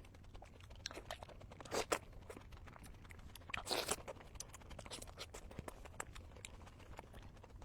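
Close-up eating sounds of a person chewing tomato: many small wet mouth clicks, with two louder, brief noisy bites or rustles about two and four seconds in.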